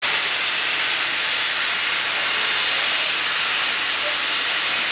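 Steam locomotive venting steam: a loud, steady hiss with no exhaust beats.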